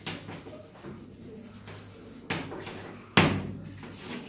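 Chalk writing on a blackboard, with a few sharp knocks as the chalk strikes the board; the loudest comes about three seconds in.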